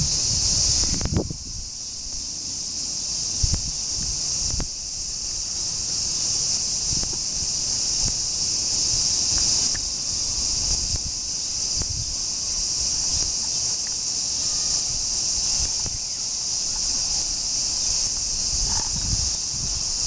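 A chorus of cicadas: a dense, steady, high-pitched drone. Low rumbles come and go underneath, strongest in the first second.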